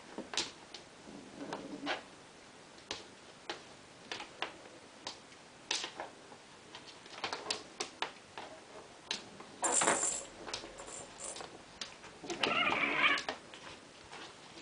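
Bengal kittens at play on a wooden floor: scattered taps and clatters of paws and toys, a short rustle about ten seconds in, and a brief cat cry near the end.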